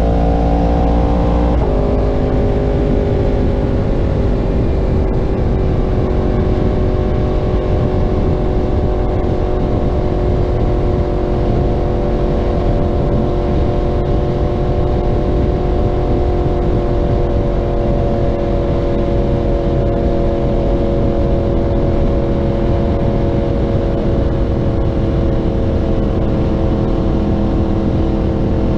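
Yamaha R1 inline-four engine through a Graves aftermarket exhaust, rising in pitch and then dropping suddenly about a second and a half in as the rider shifts up. After that it runs steadily at cruising speed, its pitch easing down slowly, over a low rumble of wind on the microphone.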